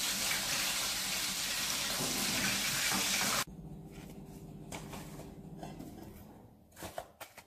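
Hot oil sizzling steadily in a kadai as samosas deep-fry, cutting off abruptly about three and a half seconds in. After that only a faint steady hum and a few soft clicks of handling.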